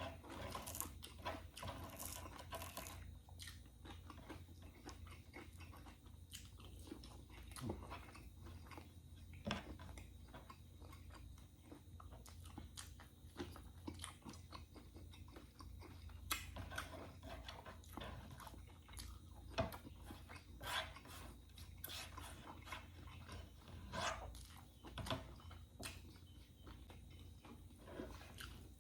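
A person chewing and biting food close to the microphone, with irregular crunches and wet mouth clicks.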